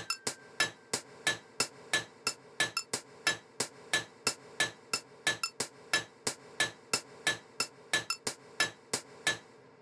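Clock ticking: sharp, dry clicks about three a second, slightly uneven with a few doubled ticks, stopping shortly before the end.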